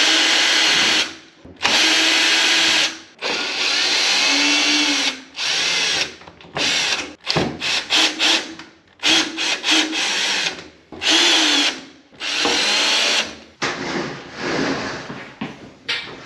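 Cordless drill-driver run in a string of short bursts, a dozen or so, its motor pitch dipping and rising within each burst as it drives fasteners out of the dryer's cabinet panels.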